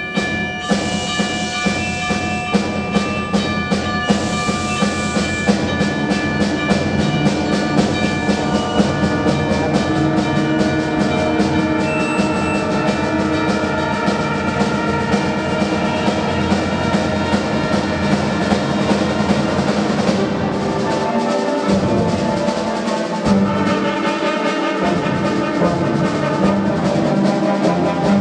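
Concert band playing: brass and woodwinds holding chords over a steady pulse of drum strokes. The bass drops out briefly about two-thirds of the way through, then comes back.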